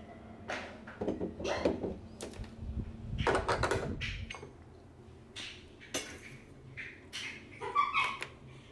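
Clicks and metal knocks of a Breville espresso machine's portafilter being handled and locked into the group head, with a few short squeals in between.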